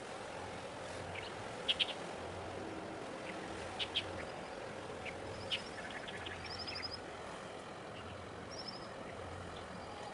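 Small birds chirping: a few sharp high chirps, some in quick pairs, and two brief rapid trills, over a steady background hiss with a faint low hum.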